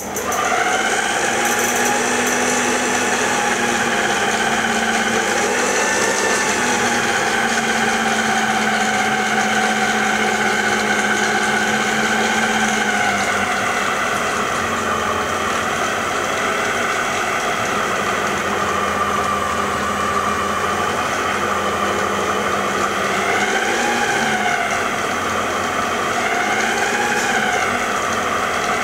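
Yamamoto Electric KITCHEN PRO FP31 food processor's motor starting up and running steadily with a whine, spinning its citrus-juicer reamer. The pitch dips and wavers near the end as a citrus half is pressed down onto the reamer.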